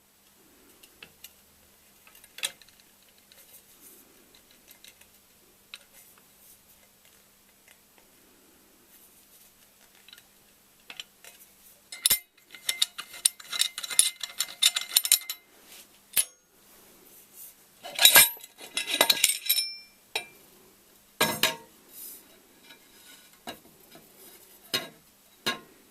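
Stainless steel pipe and fittings being handled: scattered light clicks, then two dense runs of sharp metallic clinking and clattering about halfway through and a few seconds later, with a few single knocks near the end. A faint steady hum sits underneath.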